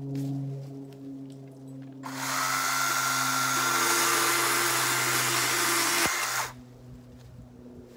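Battery-powered Yardworks chainsaw with a dull chain cutting through a dry dead limb. Over a low steady hum, the chain bites into the wood about two seconds in, and a loud cutting noise lasts about four seconds before dropping away suddenly as the cut ends.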